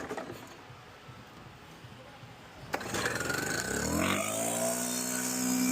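STIHL BR600 backpack leaf blower's 4-MIX engine, running on a newly replaced carburetor, being started about three seconds in: its pitch climbs quickly as it revs up, then holds at high speed.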